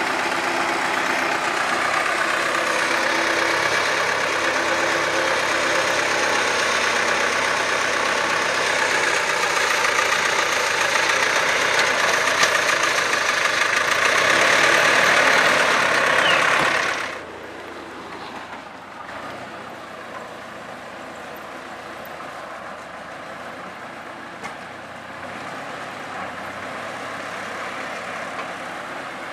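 Tractor diesel engine idling steadily, loud and close. About seventeen seconds in the sound drops suddenly to a much quieter steady engine hum.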